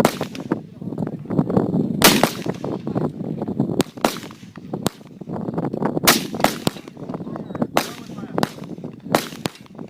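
Gunshots fired one at a time at uneven intervals, about eight or nine in all, from half a second to two seconds apart, each followed by a short echo.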